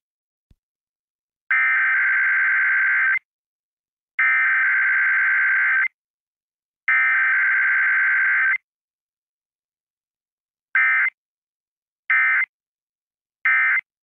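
Emergency Alert System Required Weekly Test data bursts: three long digital SAME header bursts, each just under two seconds with short gaps between, then after a longer pause three short end-of-message bursts. No attention tone or spoken message comes between them, as is usual for a weekly test.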